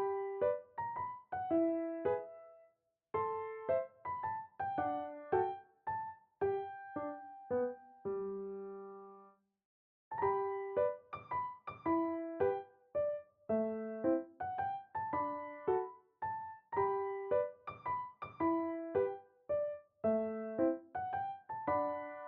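Background music: a gentle piano melody of short, softly decaying notes, pausing briefly about ten seconds in.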